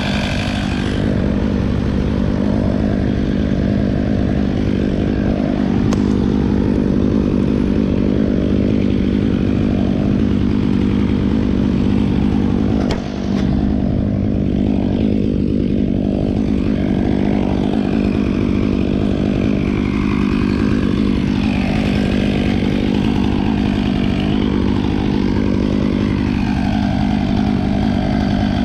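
A small engine runs at a steady high speed, holding one constant droning pitch, with a brief drop in level about halfway through.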